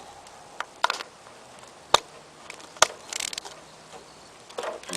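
Socket ratchet clicking as a 13 mm wrench loosens the nut holding a lawnmower carburetor's fuel bowl: a few sharp clicks about a second apart, with a short rasp after the third.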